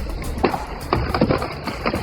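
Background music with sharp percussive hits recurring about every half second.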